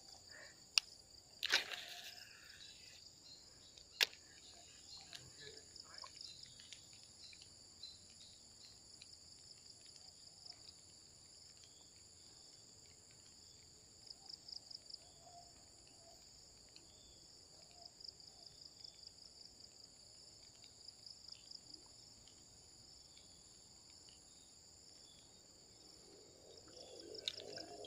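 Faint outdoor ambience of insects, crickets trilling in a steady high-pitched chorus. A few sharp clicks come in the first four seconds, and short runs of faint pulsing calls come near the middle.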